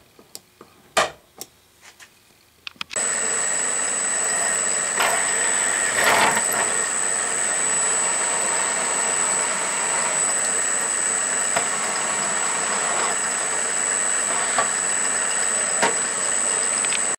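A few sharp taps of a pointed punch marking the metal, then a drill press starts about three seconds in and runs steadily with a high whine, drilling an eighth-inch hole through an aluminium vise jaw.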